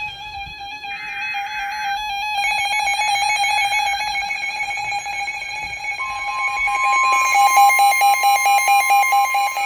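NOAA Weather Radio severe thunderstorm alert tones. About a second in comes a short screech of digital header data. Then a receiver's electronic alarm beeps rapidly over a steady tone, and about six seconds in a second, higher steady tone joins: the 1050 Hz warning alarm tone.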